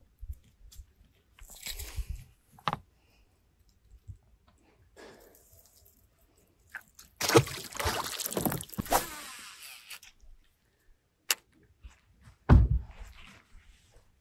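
A bass splashing into the water beside a bass boat, a loud watery rush of about two seconds starting some seven seconds in, among scattered small knocks and rustles of handling on deck. A single heavy thump follows near the end.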